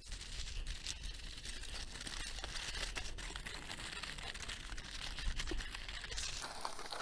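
Aluminum foil crinkling steadily in a dense run of fine crackles as hands fold and crumple a sheet into a cup shape.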